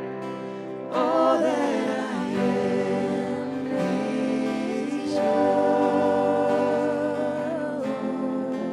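Worship music: voices singing a slow song over sustained instrumental accompaniment.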